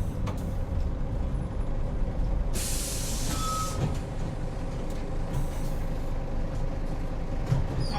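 Hino Rainbow HR (PB-HR7JHAE) route bus heard from inside: its diesel engine and road noise rumble steadily. About two and a half seconds in, compressed air hisses out of the air-brake system for just over a second.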